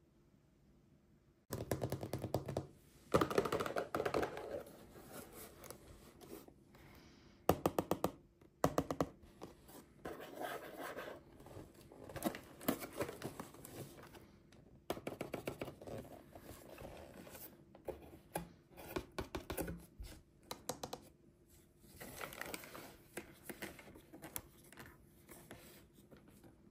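Hands working a cardboard toy display box and its plastic potion bottle: fingers and nails scratching and scraping, cardboard tabs being pulled and torn, in irregular bursts of crackly clicks starting about a second and a half in.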